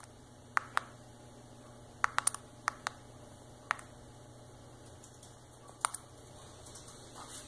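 Button clicks on a Vizio TV remote as the menu is navigated: about ten short, sharp clicks, some single and some in quick runs of two to four.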